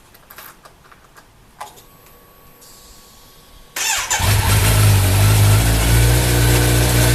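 A few faint clicks, then about four seconds in a Kawasaki Z900's inline-four engine is started and settles into a steady idle.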